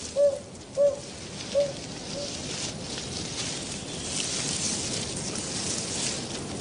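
Narina trogon hooting: a run of low hoots about two-thirds of a second apart, fading out after about two seconds. A steady rustling hiss follows.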